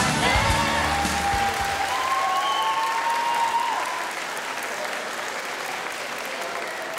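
Dance music ends within the first second and a hall audience applauds, a drawn-out cheer rising over the clapping. The applause slowly fades.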